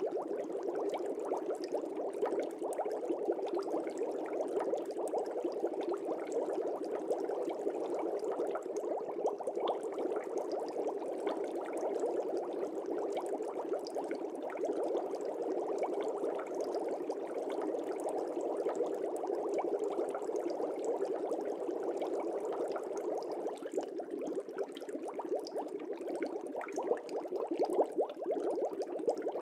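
Air bubbles bubbling steadily in an aquarium fish tank: a dense, even crackle of small bubbles with no pauses.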